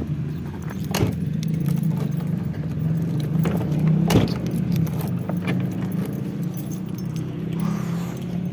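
Car door being handled and shut, with two sharp knocks about a second and about four seconds in, the second the louder, and keys jangling at the door. A steady low hum runs underneath.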